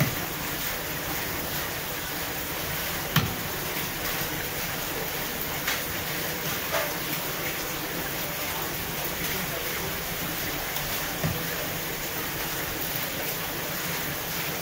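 Steady background hiss with a few scattered knocks, the sharpest about three seconds in, as a wahoo is cut with a fish knife and shifted on a wet wooden cutting board.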